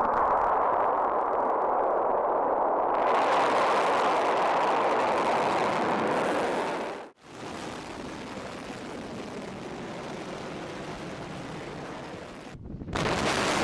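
Missile rocket motors at launch: a steady rushing roar of exhaust, heard in three cut-together clips. The first is loud and grows brighter about three seconds in before cutting off abruptly around seven seconds. The second is quieter, and a louder one begins near the end.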